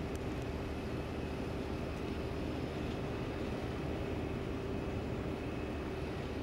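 BR Class 08 diesel shunter's English Electric six-cylinder engine idling steadily, a low rumble with a constant hum.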